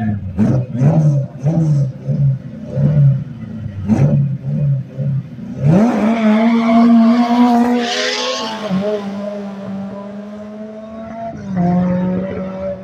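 Two drag-race cars, one a VW Golf GTI, revving in short rhythmic bursts at the start line. About six seconds in they launch with a loud rush of engine and tyre noise, then run at a high steady pitch as they pull away down the strip, the pitch dropping at gear changes.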